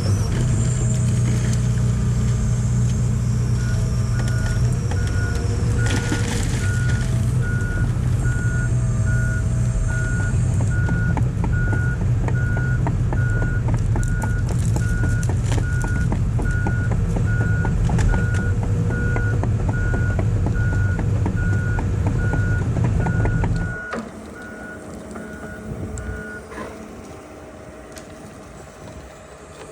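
Excavator's diesel engine running loud and steady while its travel alarm beeps in a regular series, with scattered clicks and knocks from the machine. The engine noise drops away about three-quarters of the way through, and the beeping stops a couple of seconds later.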